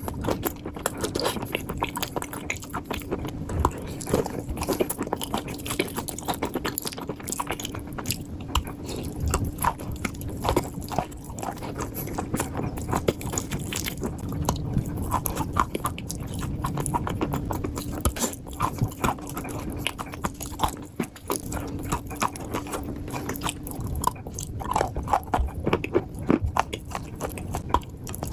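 Close-up chewing and crunching of dry clay chunks in the mouth: a steady run of irregular crisp crunches, with no words.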